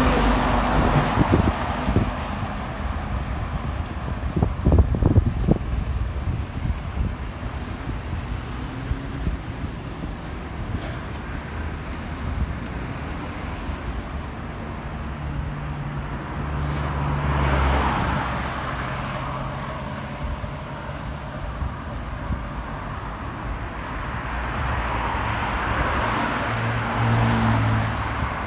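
Road traffic with cars passing over a steady low rumble. Two vehicles swell and fade, one a little past the middle and one near the end. A few brief thumps come about four to five seconds in.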